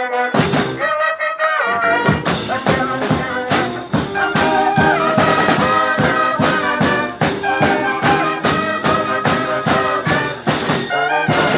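Brass band playing live: trumpets and trombones carry the tune over a steady drum beat, the full low end coming in about two seconds in.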